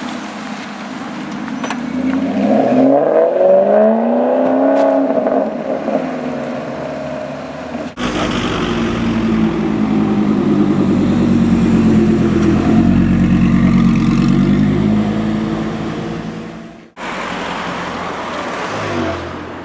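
Maserati GranTurismo MC Stradale's V8 accelerating away, its revs climbing for a few seconds. Then, after a cut, an Audi R8's engine runs loud and steady as the car pulls off. After a second cut near the end comes a quieter BMW 1M Coupé driving up.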